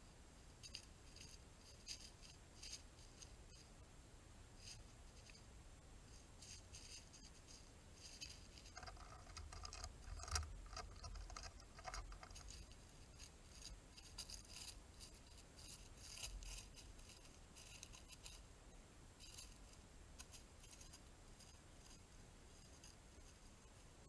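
Faint, intermittent crackling rustle of dry leaf litter as a white-tailed deer forages, a little busier about nine to twelve seconds in.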